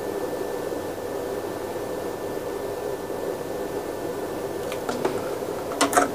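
Steady hum and hiss of running bench equipment, then a few sharp clicks near the end as a test lead's banana plug is pushed into the bench power supply's output terminal.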